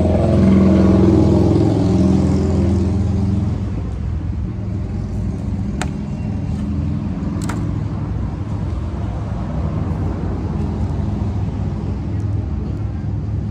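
Steady low droning hum, like an idling motor, louder for the first few seconds and then level. Two sharp clicks sound near the middle.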